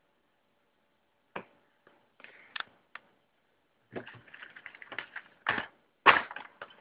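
Plastic bags of Lego Technic pieces being handled: crinkling bag plastic and small plastic parts clicking against each other. It starts as scattered clicks about a second in and grows busier and louder over the last three seconds.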